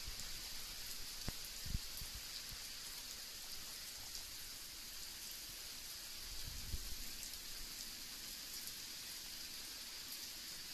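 Typhoon rain falling steadily as an even hiss, with brief low rumbles about two seconds in and again near seven seconds.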